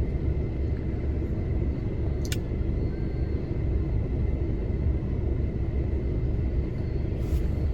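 Steady low rumble of car road and engine noise heard inside a moving car's cabin, with a light click about two seconds in.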